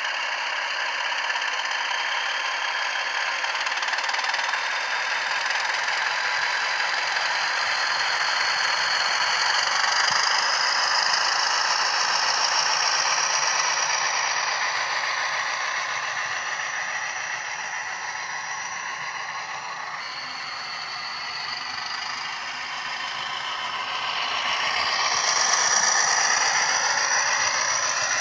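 Soundtraxx Econami sound decoder playing a Class 20 diesel's English Electric 8SVT engine through a model locomotive's small speaker: a steady running engine sound, thin, with little bass. A high whine rises around ten seconds in and again near the end, as the engine sound builds.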